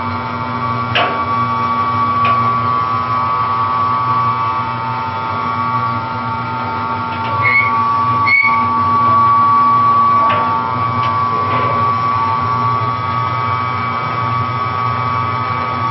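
Mortar mixer running: a steady machine hum with a high whine, broken by a few short clicks.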